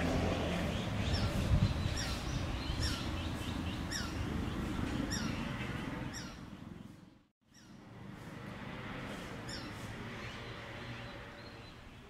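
Male Japanese sparrowhawk calling in the breeding season: a series of short, high notes, each sliding downward, over a steady low city rumble. The sound cuts out about seven seconds in, then a few more calls follow.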